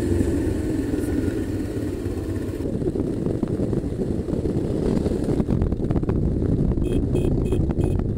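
A Honda V-twin adventure motorcycle running steadily on the move along a gravel road, with wind and gravel tyre noise. The sound changes abruptly about a third of the way in, and grows grittier with more crunching in the second half.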